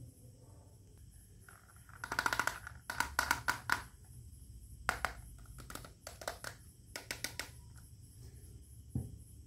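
Small plastic toy kitchen pieces clicking and clattering as they are picked up and handled, in several quick runs of clicks, with a single dull knock near the end.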